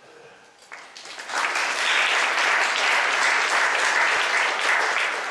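Audience applause, building quickly about a second in and holding steady before easing off near the end.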